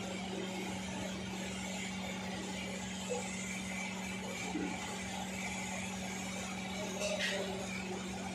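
Steady low mechanical hum from running machinery, with a faint knock about three seconds in and a brief rattle near seven seconds.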